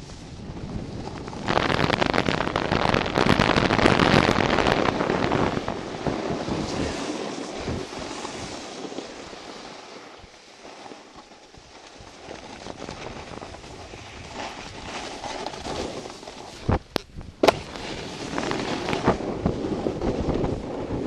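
Snowboard sliding and scraping over groomed snow, with wind rushing over the microphone; loudest in the first few seconds, easing off around the middle and building again. Two sharp knocks come close together about 17 seconds in.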